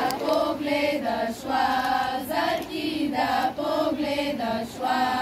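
A group of girls and young women (lazarki) singing a traditional Bulgarian lazarka ritual song together, in short held chant-like phrases with brief breaks between them.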